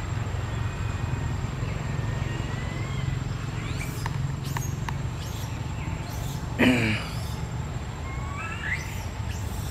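Forest ambience: animal calls with whistled rising glides and short chirps and clicks over a steady low rumble, and one short, loud call about two-thirds of the way through.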